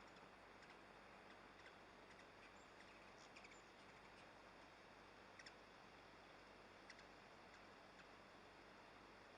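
Near silence: a faint steady hiss with a few faint scattered clicks.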